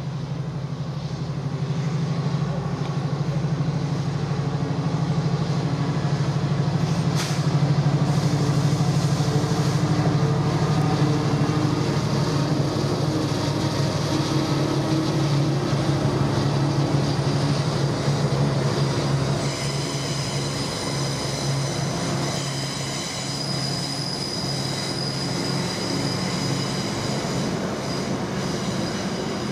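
Class 66 diesel locomotive's two-stroke V12 engine running with a loud steady drone. About two-thirds of the way through, a high-pitched wheel squeal from the train joins it.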